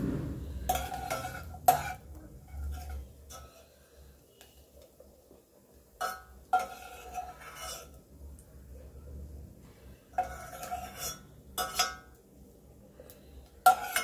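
Steel ladle clinking and scraping against a stainless-steel pot as fried coconut pieces are scooped out of the ghee, in several short bursts of ringing metal strikes.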